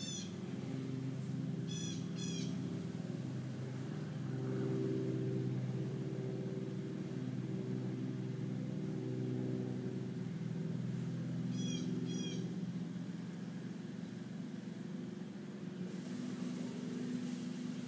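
Small petrol lawn mower engine running steadily at a constant speed. A bird chirps a few short times over it, near the start, about 2 s in and about 12 s in.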